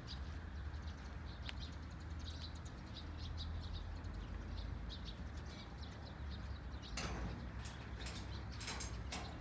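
Outdoor ambience of small birds chirping, a few short chirps every second, over a steady low rumble. There are two brief rustles, one near the end.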